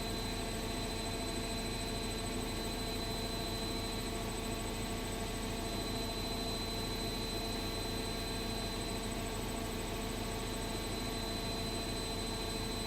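Washing machine running: a steady mechanical hum with a constant high whine over it, unchanging throughout.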